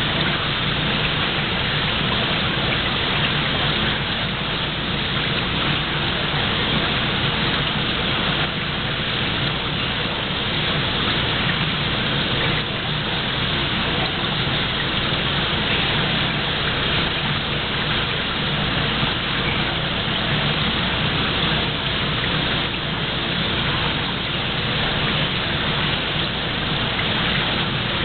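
Steady rush of running water into a shallow seawater tank, an even hiss and splash that goes on without a break.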